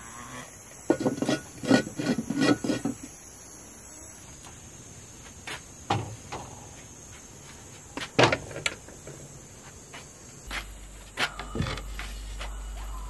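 Earthenware pots, their lids and a small clay stove being handled and set down on wooden shelves and a wooden table: a quick run of knocks and clinks about a second in, then a few single knocks.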